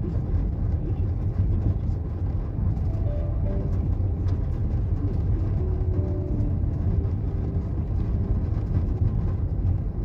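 Car cabin noise while rolling slowly along a gravel road: a steady low rumble of engine and tyres on gravel.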